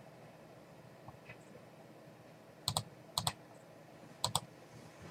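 Three quick double clicks of computer keys or buttons, one about halfway through and two more in the last couple of seconds, over a quiet room.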